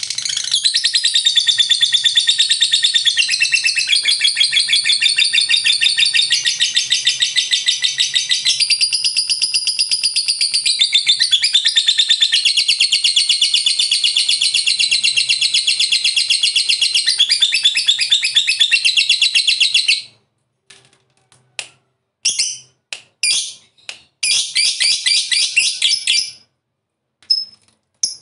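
Lovebird giving its long 'ngekek' chatter: a shrill, very rapid trill that runs unbroken for about twenty seconds, then breaks into short bursts of chatter.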